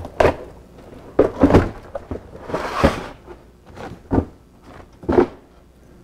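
Cardboard parts box for a new drive axle being opened and the parts handled on a workbench: about half a dozen separate knocks and thuds, with a longer rustling slide near the middle.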